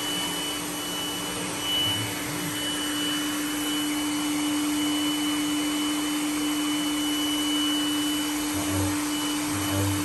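Robot vacuum cleaner running on a hard wooden floor: a steady motor and suction hum with a thin high whine over it. A few soft low thumps come about two seconds in and twice near the end.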